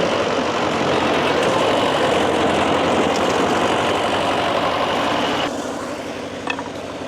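Wood-Mizer portable band sawmill's engine running steadily; about five and a half seconds in it drops quieter, and a light click or two follows near the end.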